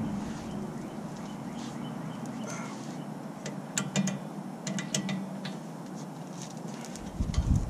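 A hand ratchet clicking as it is worked on a rear brake caliper bracket bolt, with a short run of sharp clicks about halfway through.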